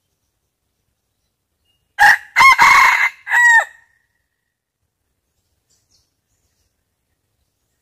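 A red junglefowl cock crows once, a short clipped crow of several notes lasting under two seconds, the last note dropping in pitch.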